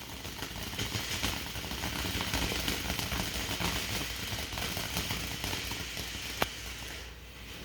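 Ground fountain firework spraying sparks: a steady hiss with fine crackling, and one sharper pop about six and a half seconds in.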